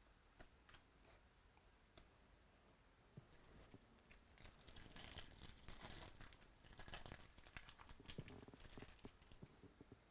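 A few faint clicks of cards being handled, then, from about four seconds in, the crackly tearing and crinkling of a foil trading-card pack wrapper being ripped open, lasting about five seconds.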